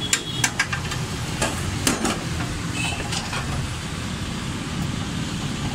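Sharp clicks and clinks of parts being handled and fitted on a bare car engine. There are several in the first two seconds and a few fainter ones about three seconds in, over a steady low rumble.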